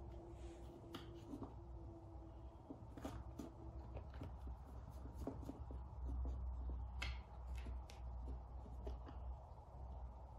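Scattered light taps and scratches of cats moving about and pawing at a toy snake on a wooden floor and cardboard scratcher, over a low rumble that gets heavier about six seconds in.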